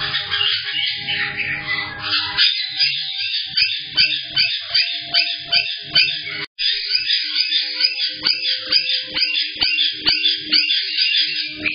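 A flock of caiques chattering and calling in an aviary: a dense, steady stream of shrill chirps and squawks, with sharper separate calls at about three a second from a couple of seconds in. It comes through a security camera's thin-sounding microphone, with a brief dropout a little past halfway.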